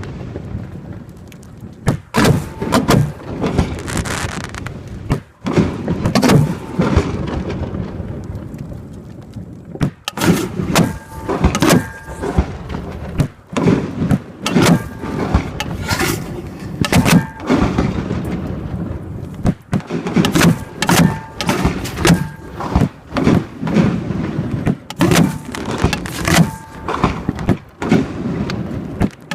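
Professional fireworks show heard from a few feet from the mortar tubes: shells firing from the tubes with sharp thuds, and bursts booming overhead, dozens in quick succession.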